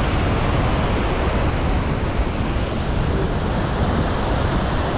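Steady, loud rush of water from Iguazu Falls crashing down close by.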